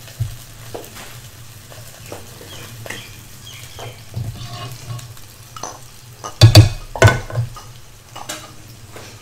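Kitchen handling sounds: scattered light clinks and knocks of a glass bowl and utensils as a boiled egg is lifted out of a pot of boiling water. Two loud knocks come about six and a half and seven seconds in, over a low steady hiss from the boiling pot.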